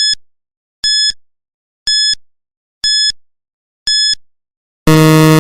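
Countdown timer sound effect: five short, high beeps one second apart, then a longer, lower buzzer tone near the end marking time up.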